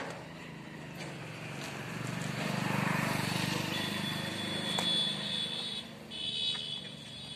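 A motor vehicle passing, its engine noise swelling to a peak about three seconds in and then easing off. A steady high-pitched tone joins near the middle, breaks off briefly and comes back near the end.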